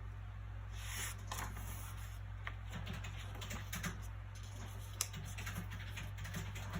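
Soft rustles and light ticks of book pages being handled, over a steady low background hum. A brief rustle comes about a second in and a single sharper tick about five seconds in.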